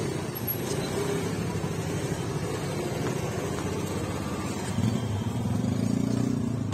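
Heavy trucks' engines running in slow-moving traffic, a steady low rumble that grows louder about two-thirds of the way through as the nearest lorry pulls closer.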